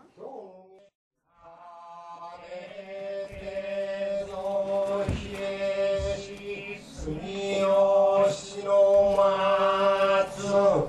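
Men's voices chanting in the slow, held-note style of Noh and kyogen utai. The chant begins after a brief pause and grows louder, with a few low thuds from about halfway on.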